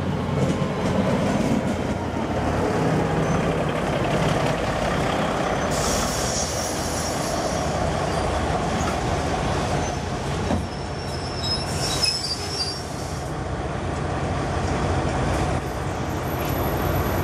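Auckland diesel multiple-unit passenger train rolling in alongside the platform, its carriages passing close by with a steady heavy rumble. High thin metallic squeals come from the wheels about six seconds in and again around twelve seconds.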